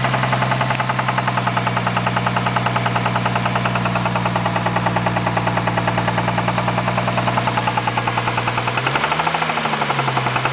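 Turbocharged Lexus IS300 straight-six engine running at steady revs with a rapid, regular knock, which the owner suspects is a spun bearing. The revs rise and drop briefly near the end.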